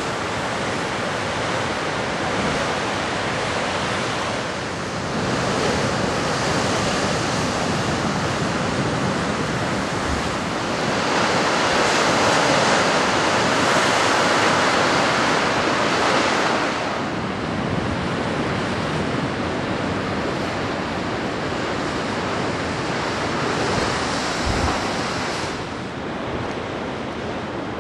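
Ocean surf breaking on a rocky shore, a continuous rush that swells into a louder surge about eleven seconds in and eases off again some five seconds later, with a little wind on the microphone.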